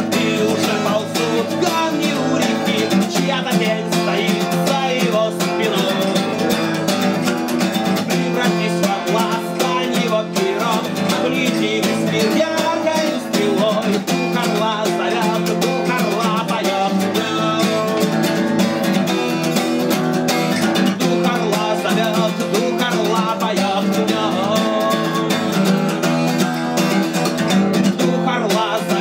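Acoustic guitar strummed steadily in a continuous run of chords, as a solo song accompaniment.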